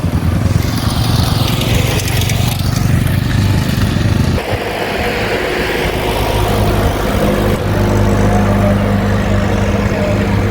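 A motor vehicle engine running steadily, its note changing about four seconds in.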